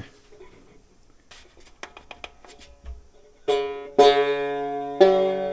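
Light handling clicks and taps on the strings and bridge for about three seconds, then three plucked notes on a banjo-style Stromburg Cuppophone, each ringing out. The strings still rattle: after a lower bridge was fitted, a string is hitting something, and raising it on a slip of credit card has not cured it.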